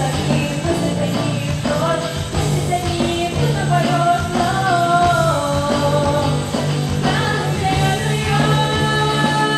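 Pop-rock song: a sung melody over band backing, with long held notes and a steady bass line.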